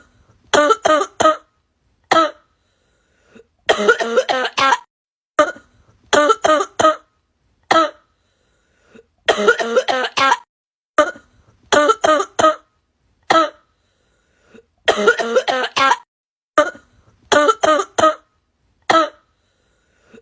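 A man coughing in loud fits of short, voiced, rasping coughs with silent gaps between. The same run of coughs repeats about every five and a half seconds, as if looped.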